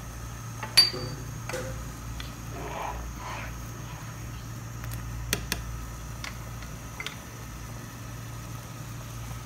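A spoon knocks against a saucepan of boiling plum syrup a few times during stirring, over a steady low hum. The loudest knock, about a second in, rings briefly.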